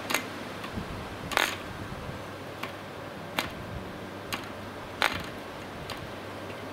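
Propeller of a Cox .049 Black Widow glow engine being flicked over by finger to start it: a sharp snap with each flick, about seven flicks roughly a second apart at uneven intervals. The engine does not fire.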